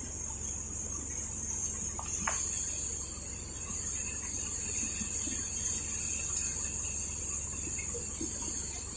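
Paddy thresher running steadily while rice sheaves are fed in: a continuous high-pitched hiss over a steady low hum, with a couple of short clicks about two seconds in.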